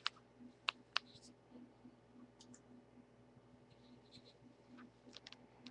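USB cable being handled and plugged into a smartphone: three sharp clicks in the first second, then faint light ticks and taps.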